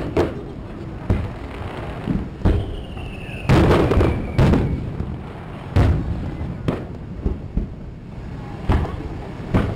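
Aerial fireworks shells bursting in a display: a string of booms about once a second, the loudest cluster three and a half to four and a half seconds in, with a faint falling whistle just before it.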